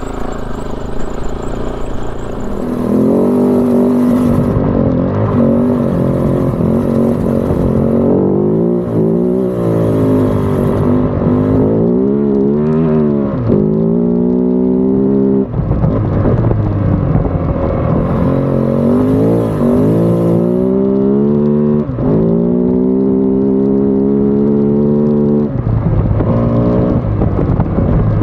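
Kove FSE 450R rally bike's 450cc single-cylinder engine being ridden hard, its pitch climbing again and again under throttle and dropping sharply when the throttle is rolled off or the next gear is taken.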